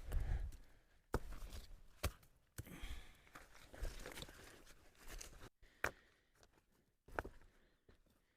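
Fire-ring stones being picked up and set down, with several sharp knocks of rock on rock amid shuffling footsteps and rustling on the ground.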